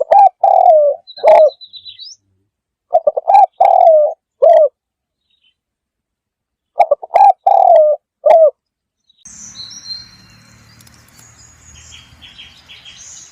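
Bird cooing: three separate phrases of low, gliding coos, each a few notes long with silence between. From about nine seconds in, a quieter outdoor background with high, short chirps of small birds takes over.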